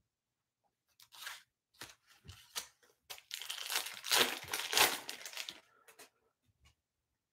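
A Bowman Chrome trading-card pack's foil wrapper crinkling as it is handled, then torn open in a longer tearing stretch about three seconds in.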